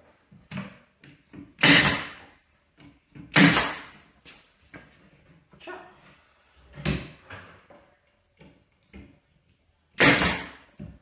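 Nail gun firing nails into a plywood cabinet box: four loud, sharp shots spaced one to three seconds apart, with small knocks and clicks between them as the tool is moved along the box.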